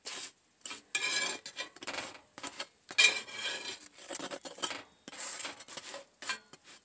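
Metal spatula scraping and clinking against a cast iron flat skillet as muffins are lifted and turned. There are three or four short scrapes, with a sharp clink about three seconds in.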